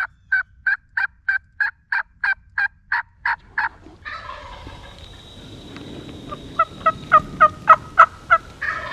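Turkey yelping on a mouth call: a run of about a dozen even yelps at roughly three a second, then after a pause a second, louder run of yelps near the end.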